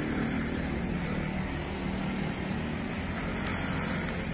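Wheels of a long-distance passenger train rumbling steadily on the rails as its rear carriages move away down the track, with a low hum running under the noise.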